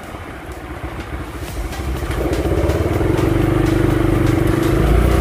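Motorcycle engine running on the road, getting louder and rising a little in pitch as it speeds up about two seconds in, then holding a steady pitch.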